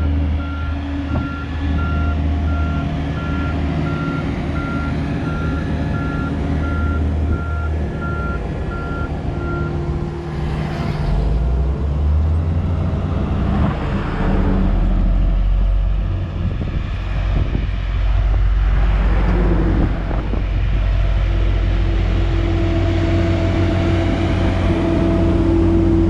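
Reversing alarm of a heavy diesel vehicle beeping at an even pace over the steady running of its engine. The beeping stops about ten seconds in, and the engine keeps running, a little louder from then on.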